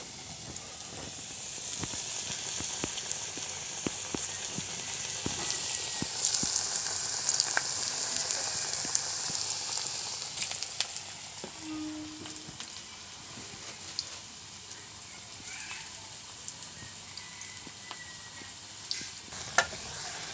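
Raw jackfruit patties shallow-frying in hot oil in a small iron wok: a steady sizzling hiss dotted with small pops and crackles, louder in the first half and easing off after about twelve seconds, with one sharper crack near the end.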